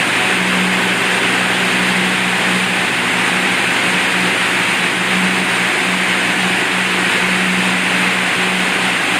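A machine running steadily, with an even hum under a strong hiss that does not change.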